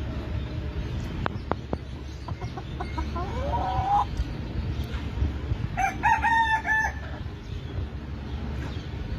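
Two rooster crows, the first about three seconds in and the second, louder, around six seconds, over a steady low rumble, with a few sharp clicks about a second in.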